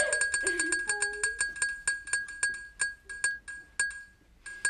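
Ticking of an on-screen prize-wheel spinner: identical sharp clicks, about eight a second at first, slowing steadily to a few widely spaced ticks as the wheel winds down to a stop.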